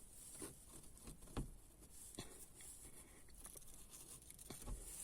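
Faint handling noises from hands working on a car's rear-view mirror mount and its strip of cloth tape: a few light clicks and taps, the strongest about a second and a half in, with two more close together near the end.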